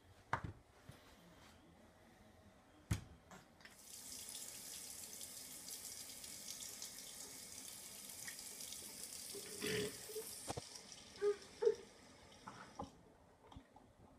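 Bathroom sink tap running, its stream splashing into a ceramic basin. The water comes on about four seconds in and is shut off near the end, with a few sharp knocks before it starts.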